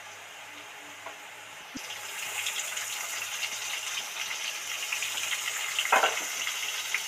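Chopped onion dropped into hot oil in a karahi with fried potatoes, starting to sizzle about two seconds in after a light click, then sizzling steadily. A spatula knocks against the pan near the end.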